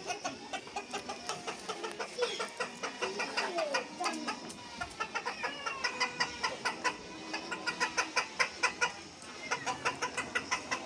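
A flock of free-ranging chickens clucking, with many short clucks repeating and overlapping.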